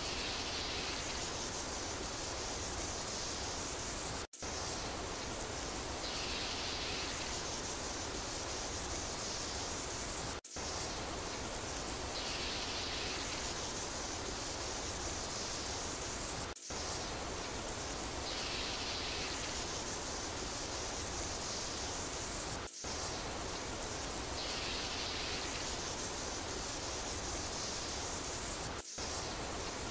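Steady rain sound, an even hiss, looped about every six seconds with a brief dropout at each seam.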